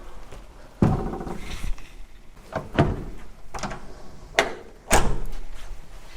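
A handful of irregular knocks and thuds, about five in all, the loudest one near the end. They are like a door or gear being handled in a small room.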